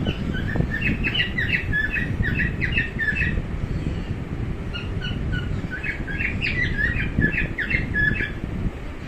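Cockatiel chirping and squawking in two runs of quick, short notes, the first from about half a second to three seconds in, the second from about five to eight seconds in, over a steady low background rumble.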